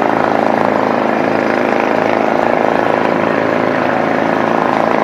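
Engine running steadily and loudly, with an even low hum underneath and no change in speed.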